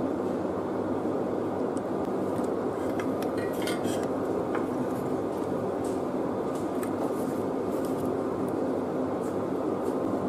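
A steady, even rushing noise like a fan, with scattered light clicks and clinks of small metal tools (multimeter probe tips and a soldering iron) touching a circuit board, most of them a few seconds in.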